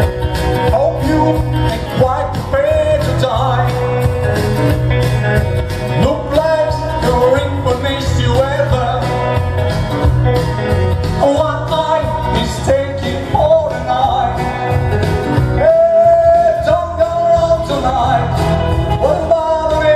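Live country-style song from a solo performer: a man's voice sings over instrumental accompaniment, holding a long wavering note near the end.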